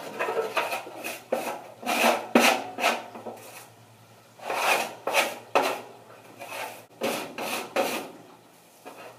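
Lil Chizler scraper scraping caked grease and grime off the inside of a dirty grill, in short, irregular strokes that come in bursts with brief pauses.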